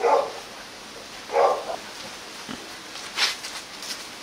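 Rottweiler puppy barking: two short barks, one at the start and another about a second and a half in, followed by a brief click about three seconds in.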